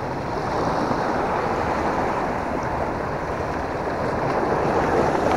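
Small sea waves washing over shore rocks, a steady rushing wash, with wind on the microphone.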